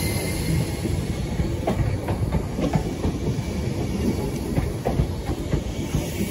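Merseyrail Class 507 electric multiple unit running past close by, its carriages rumbling steadily and its wheels clicking over the rail joints.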